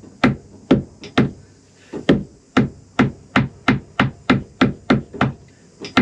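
Hammer striking a bolt over and over, about two to three blows a second, driving it through the top of a boat's rudder-shaft mount; the bolt is a tight fit and slow to go in.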